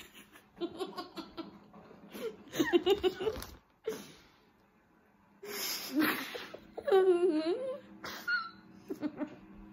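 Two girls laughing in repeated fits, their mouths full of marshmallows, with a short lull about four seconds in.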